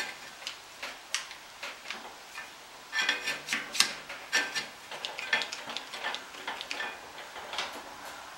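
Irregular clicks and light knocks as an Irwin bar clamp is worked and fastened onto the rim of a bandsaw wheel to hold a freshly fitted, heat-softened tire in place. The clicks come thickest about three to four seconds in.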